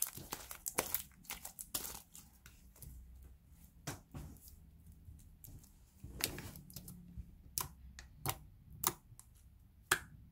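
Sticky slime being stretched, pulled apart and kneaded between fingers, giving off irregular sharp crackles and pops, with a louder pop near the end.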